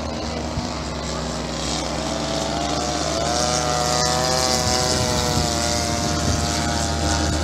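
Radio-controlled model biplane engines droning overhead as a pair of planes fly by. The sound is steady, with a higher engine note rising and falling slightly about halfway through.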